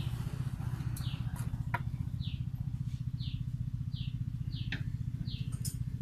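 A motor or engine running steadily with a low, fast-pulsing hum, and a bird chirping over it about once a second, each chirp a short falling note. A few sharp clicks are heard now and then.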